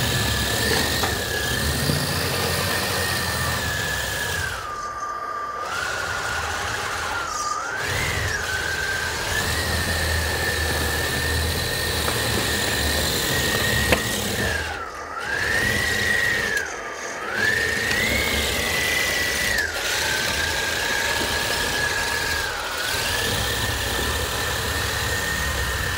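Electric RC truck's four brushless Tekin Roc412 motors and geared drivetrain whining at a high, steady pitch; the whine drops and briefly cuts out a few times as the throttle eases off, then climbs back. A low rumble runs underneath.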